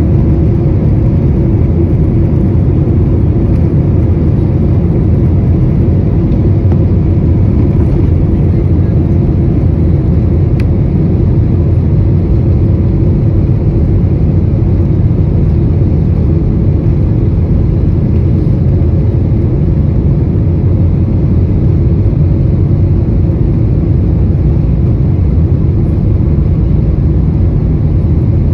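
Steady low rumble of an Airbus A321-231's IAE V2500 turbofan engines and airflow, heard inside the passenger cabin as the airliner rolls along the ground.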